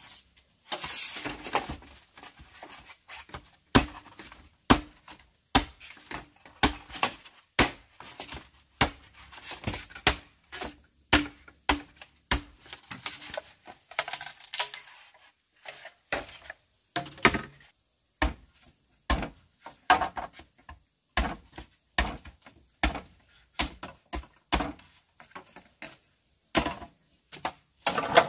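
Steady series of sharp hand-tool strikes, roughly one every second, with brief scraping rustles between some of them.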